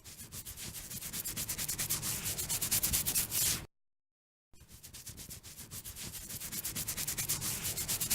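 Fingernails scratching through the hair on a head: rapid rasping strokes, several a second, in two runs that each grow louder, with a brief pause a little under four seconds in.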